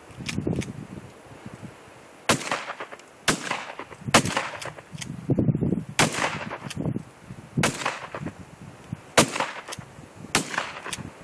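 A shotgun fired about seven times in quick succession, one to two seconds apart, each shot trailing off in an echo. Wind rumbles on the microphone between the shots.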